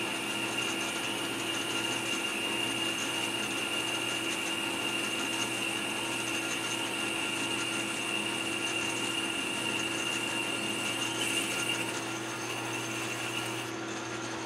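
Metal lathe running with a steady whine and gear noise while a boring bar cuts inside the spinning part, boring the hole out toward its pre-threading diameter. The high whine drops out near the end as the tool is withdrawn.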